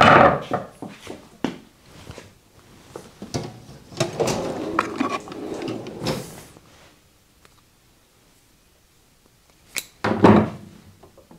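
Handling sounds: hands and hand tools knocking, clicking and scraping on the cast housing of an old electric motor. A longer run of rustling and scraping comes in the middle, then a short quiet spell and a louder scrape-and-knock burst near the end.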